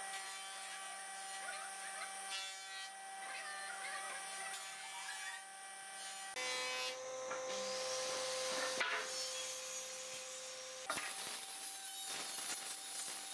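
Wood being handled on a wooden worktable: a board straightedge slid and set down on a pine panel, with scraping and a few sharp knocks. Faint steady tones sit underneath throughout.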